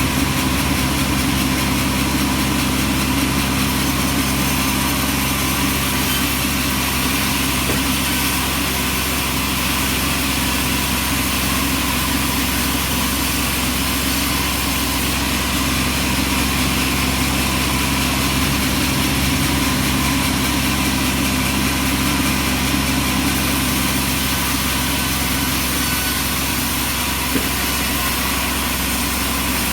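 Engine-driven bandsaw sawmill running steadily, a constant engine hum under an even high hiss.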